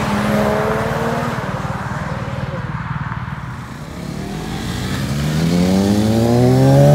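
A BMW Z4 convertible drives past with a steady engine note that fades away. Then, about halfway through, a sport motorcycle accelerates hard, its engine pitch rising steadily and growing louder toward the end.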